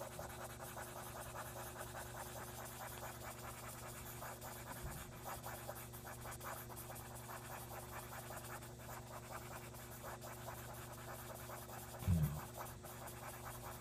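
Cotton swab rubbing and scratching on drawing paper, blending the drawn blue sky to soften the clouds. The scratchy rubbing keeps on throughout over a steady low hum, with a short low sound about twelve seconds in.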